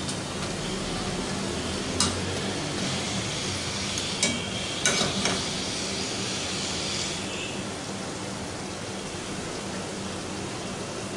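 Oil sizzling steadily around small maida-dough zeera papri deep-frying in a steel karahi. A few sharp metal clinks of a wire-mesh skimmer against the pan come about two, four and five seconds in as the papri are turned, and the sizzle eases a little past the middle.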